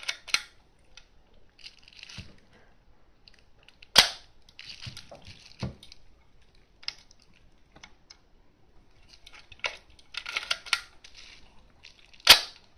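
Canon VI-L rangefinder camera's focal-plane shutter firing twice, two sharp clicks about eight seconds apart. In between come the lighter clicks and rustle of the film advance lever being wound and the camera being handled.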